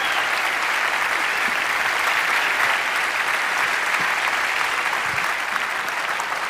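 A large audience applauding steadily, easing off slightly toward the end.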